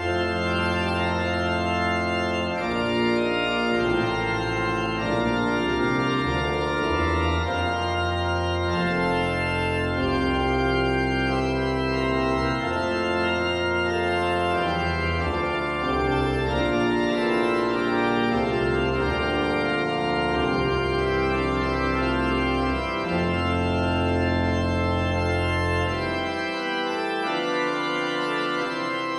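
Pipe organ playing the postlude: full sustained chords over low pedal bass notes. The deepest bass drops out near the end while the chords carry on.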